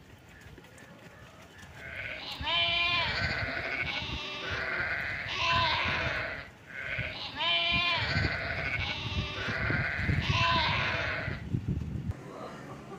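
Goats bleating: wavering calls come about two and a half seconds in and again about five seconds later, each followed by more bleats.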